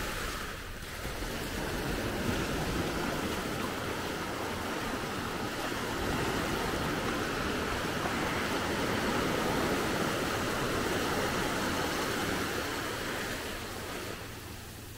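Small ocean waves breaking and washing up over a sandy shore: a steady rush of surf that swells and eases, dipping about a second in and again near the end.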